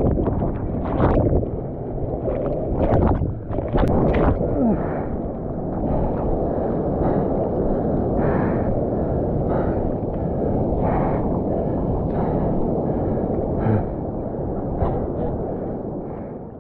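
Breaking surf and whitewater rushing and splashing around a waterproof action camera at water level, muffled and heavy in the low end. Sharp splashes hit the camera in the first few seconds as it is tumbled in a wave, then the foaming water settles into a steady rush.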